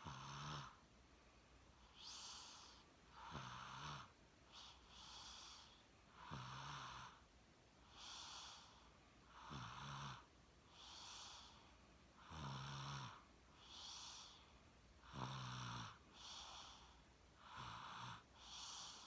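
A person snoring, close up: a rattling snore on each breath in, about every three seconds, with an airy breath out between.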